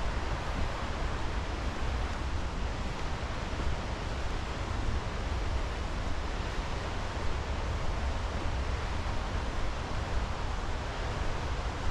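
Steady rushing of a mountain creek and cascading waterfall, an even wash of water noise without breaks.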